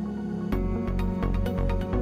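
Background music: held synth-pad chords, joined about half a second in by a steady beat with a pulsing bass and crisp percussion.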